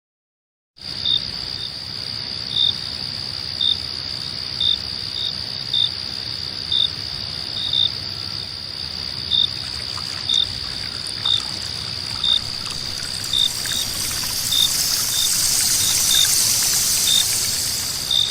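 Cricket ambience: a steady high trill with a separate short chirp about once a second, starting after a second of silence. Near the end a hiss swells up under it.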